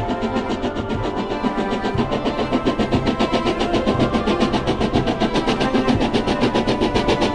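Background music with a rapid, steady drum pattern over sustained tones.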